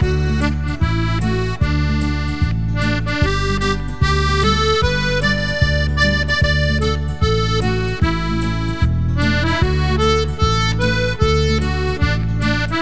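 Piano accordion playing a lively folk tune: a melody runs over a steady, evenly repeating bass beat.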